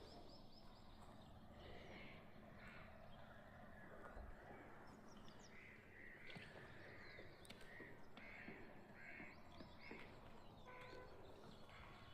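Faint bird calls outdoors: a run of short, repeated calls about one a second, thickest in the second half, with fainter high chirps between them.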